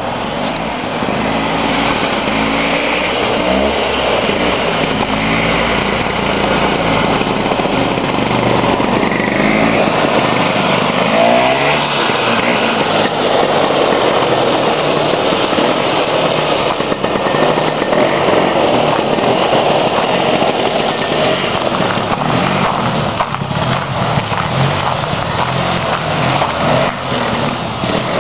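1970 Bombardier Ski-Doo Olympique 12/3's 299cc two-stroke engine running as the snowmobile is ridden, revving up and falling back several times.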